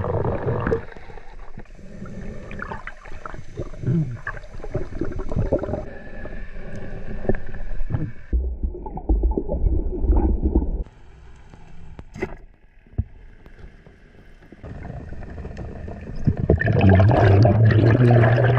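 Underwater sound picked up by a camera in its waterproof housing: muffled water noise with gurgling, scattered clicks and knocks, and a loud low steady hum near the end.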